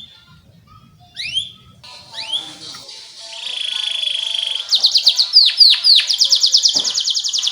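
Canary singing: a few upward-sweeping whistled notes, a held note, then several falling sweeps and a fast, loud trill of rapid repeated notes.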